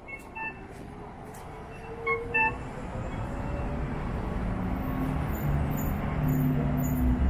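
Street traffic with a heavy vehicle drawing near, its engine rumble building and getting louder through the second half, with a faint high whine. Two pairs of short high chirps near the start and about two seconds in.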